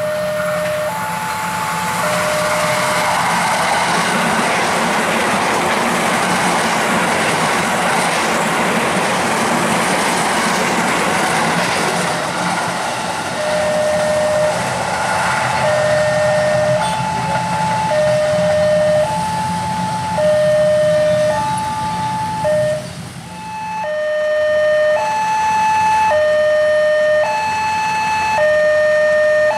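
A KAI Commuter electric train passing a level crossing, a dense rush of wheel and rail noise, while the crossing's warning alarm sounds a two-tone alternating 'ding-dong' about every ¾ second. After about 13 seconds the train noise dies away and the alarm tones carry on alone, clearer and louder.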